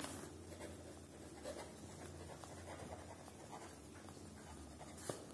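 A pen scratching faintly on paper as words are written by hand, in short strokes.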